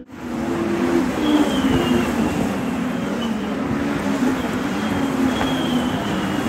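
A pack of Legends race cars driving past, powered by Yamaha motorcycle engines. Several engines run at once, making a steady drone at a few different pitches.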